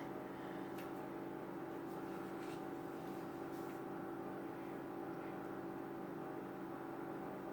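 A steady mechanical hum made of several fixed tones, with a few faint soft clicks.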